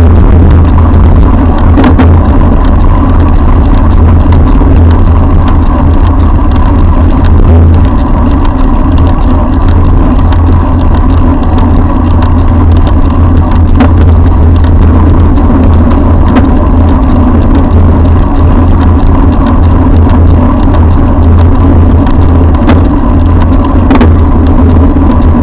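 Loud, steady rumble of wind and road vibration picked up by a camera mounted on a moving bicycle, with motor traffic running behind. A few sharp ticks stand out now and then.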